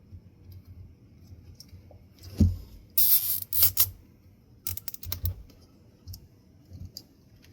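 Handling noise from work on a ceiling fan's parts: a dull thump, a second or so of scraping and rustling, then a quick run of sharp clicks, with a few faint ticks near the end.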